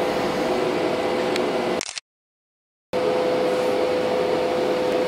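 Steady hiss and hum of running industrial machinery with a constant whine. The sound cuts out to silence for about a second, about two seconds in, then picks up again.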